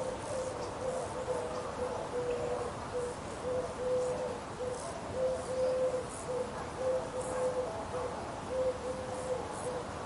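A bird's low hooting call repeated over and over, short and longer notes at one steady pitch, one to two a second, stopping shortly before the end, over steady rural background noise with faint high chirps.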